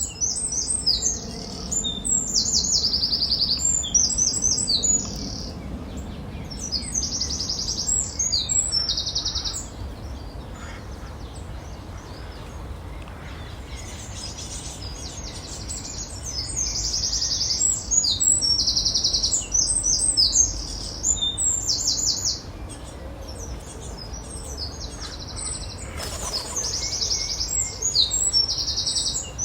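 Small birds chirping in quick, high-pitched runs of repeated notes, coming in dense bursts with quieter stretches in between.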